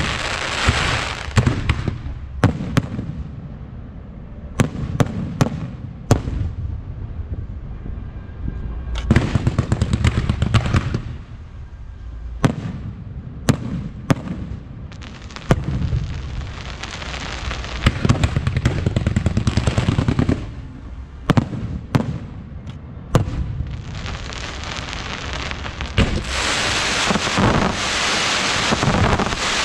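Fireworks going off: repeated sharp bangs with stretches of dense crackling between them, the longest near the end.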